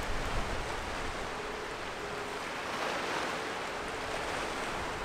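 Steady rush of wind and river water, with gusts buffeting the microphone and a faint on-and-off hum underneath.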